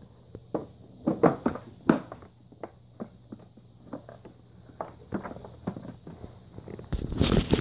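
Plastic vacuum attachments being handled and put away: irregular clicks and knocks, with a louder clatter about seven seconds in.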